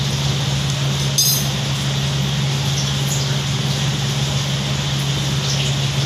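Steady hum and rush of an electric air cooler's fan. About a second in there is a single sharp metallic clink from the parakeets pecking at their steel food plate, and a few faint short chirps from Alexandrine parakeets.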